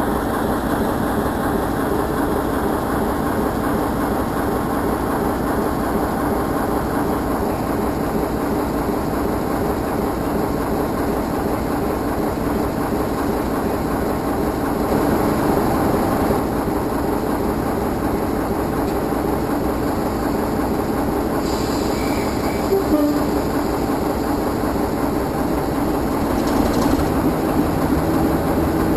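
A mainline diesel locomotive idling steadily close by.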